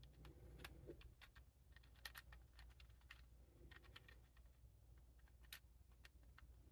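Plastic 4x4 Rubik's cube being twisted through a sequence of moves: faint, irregular clicks as the layers turn.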